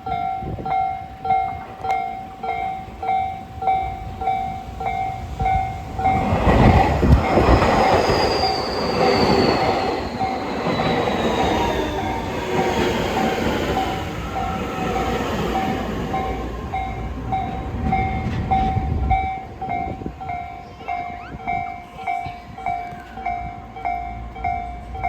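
Level-crossing warning bell dinging steadily, about three dings every two seconds. About six seconds in, a Tobu Urban Park Line train rushes past over the bell, with wheels clattering on the rail joints and a falling whine. The train noise dies away near the end while the bell keeps ringing.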